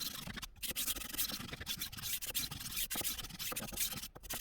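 HORL 2 rolling knife sharpener's grinding disc rolled back and forth along a steel knife edge, giving a continuous rasping grind that breaks off briefly about half a second in and again near the end as the strokes change direction.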